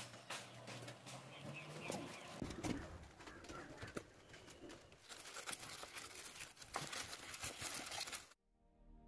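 Faint rustling and clicking, with a bird, possibly a dove, calling in the background; it cuts off to near silence near the end.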